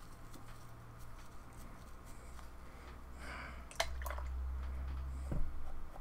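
Low steady hum, with a soft rustle about three seconds in and two light clicks just before four seconds, after which the hum grows louder.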